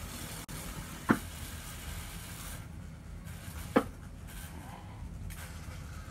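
Electric guitar rig left live between bursts of noise: a steady low amplifier hum and hiss, with two sharp pops, about a second in and again nearly four seconds in.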